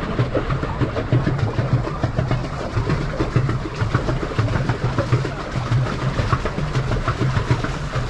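A pedal boat moving through the water: water splashing and slapping close to the hull, with a low churning that swells and fades about once a second.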